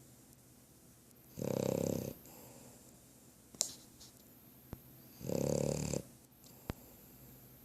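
Snoring: two loud, drawn-out snores about four seconds apart, each lasting under a second, with a quiet pause between breaths. A sharp click comes between the two snores.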